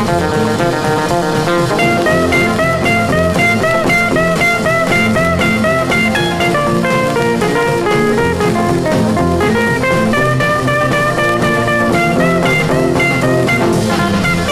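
A 1959 rock and roll record played from a 45 rpm vinyl single: an instrumental passage of guitar picking a melody of short notes over drums, with a longer held phrase near the end.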